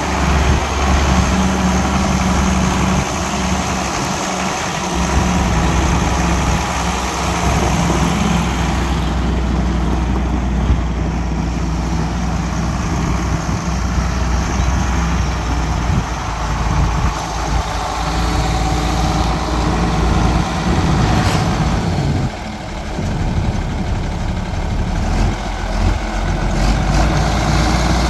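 John Deere 4440's turbocharged six-cylinder diesel engine running steadily as the tractor is driven slowly.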